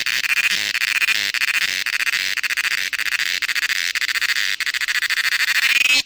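Cicada calling: a loud, steady, high-pitched buzz of very rapid pulses.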